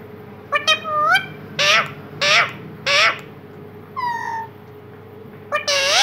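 Indian ringneck parakeet making a string of short calls, most of them rising in pitch.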